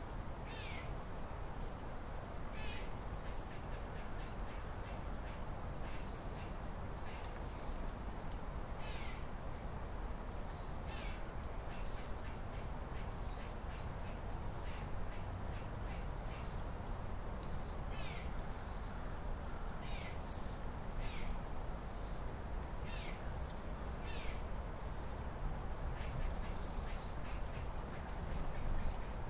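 A bird repeating one short, high, falling chirp about once every second and a half, over a steady low background hum.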